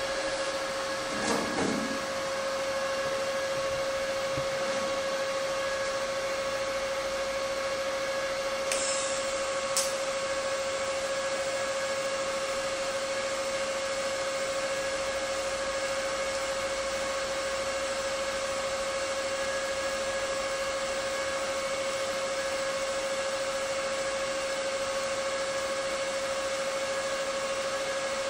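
Steady electrical hum of the welding setup, with a brief crackle about nine seconds in as the TIG arc is struck with high-frequency start. After that the arc burns steadily and quietly under the hum.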